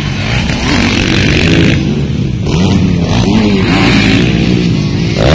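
Dirt bike engines revving on a motocross track, their pitch repeatedly rising and falling as the riders open and close the throttle.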